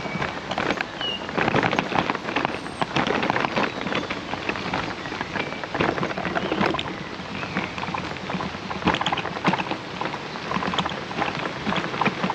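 Bicycle tyres rolling over a rough path, giving an irregular crackling patter.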